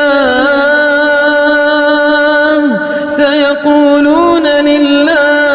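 Melodic Quran recitation: a single reciter's voice holds a long drawn-out note with small ornamental pitch turns. The note dips and breaks briefly about three seconds in, then rises and carries on.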